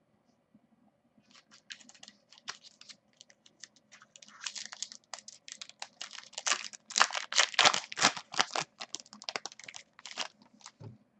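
Trading cards and their packaging being handled: a run of dry crinkling and clicking that starts about a second in and is densest and loudest past the middle.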